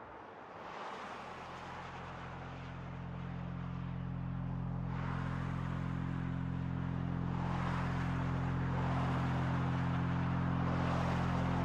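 A steady low hum of several fixed pitches fades in about a second in and slowly grows louder. Over it, washes of noise swell and fade every few seconds, like passing traffic.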